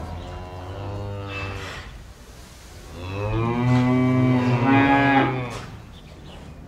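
Cattle mooing twice: a lower, shorter moo at the start, then a louder, longer moo about three seconds in.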